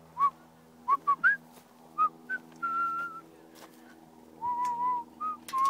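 A person whistling to call a horse: a string of short chirping whistles, then a few longer held whistled notes.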